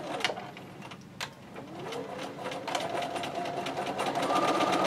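Bernina sewing machine stitching a seam, its motor whine and rapid needle clicks running together. The machine eases off early on, then picks up speed about a second and a half in, the whine rising in pitch.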